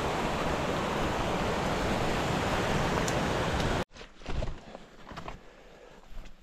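A loud, steady rushing noise that cuts off abruptly about four seconds in, followed by quieter, irregular footsteps on a trail.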